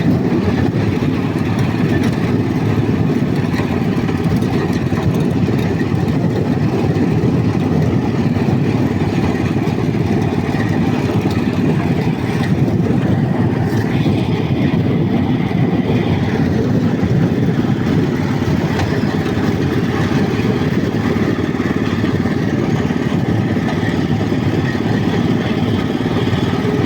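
Walk-behind tractor engine running steadily while it drives along at an even speed.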